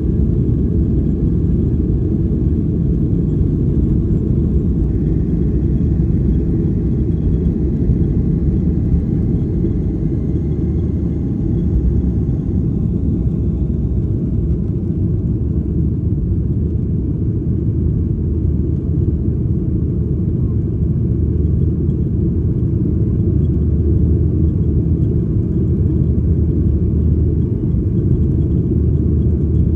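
Cabin noise of a Boeing 737-800 during takeoff and initial climb, heard from a window seat behind the wing: a loud, steady low rumble from the CFM56-7B engines at takeoff power.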